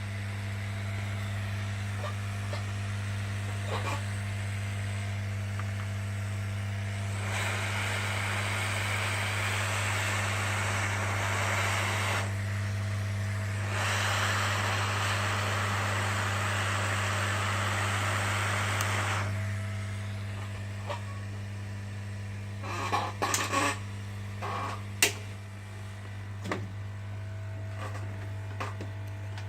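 A steady electrical hum under two stretches of hissing air, each about five seconds long, typical of a hot-air rework station blowing on a motherboard to desolder a small surface-mount diode. A few sharp clicks and taps follow near the end.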